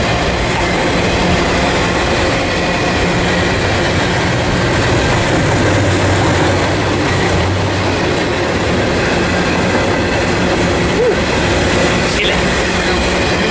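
Freight train passing close by, a steady loud rush of railcar wheels rolling on the rails.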